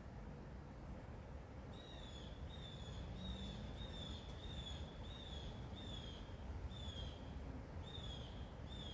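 A bird repeating a series of short, clear, downward-slurred whistled notes, about one and a half a second, starting about two seconds in, over a steady low rumble.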